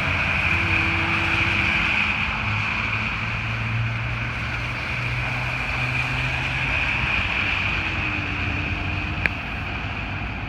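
Street traffic: a steady hiss of vehicles on the road with a low engine hum that rises and fades as vehicles pass, and a single short click about nine seconds in.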